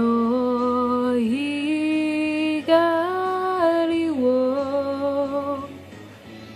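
A young male voice singing long held notes that step up and down in pitch. Near the end the singing drops away, leaving a quieter background.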